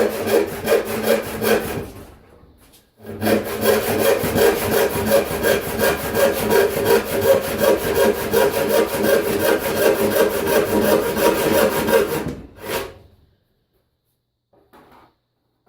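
Hand saw ripping a wooden board lengthwise, with the blade cutting the wood in steady, rhythmic back-and-forth strokes. The sawing pauses briefly about two seconds in, then runs on and stops about twelve seconds in.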